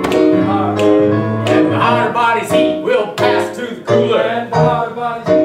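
Piano accompaniment played on a Korg digital keyboard for a comic song, notes and chords moving steadily throughout.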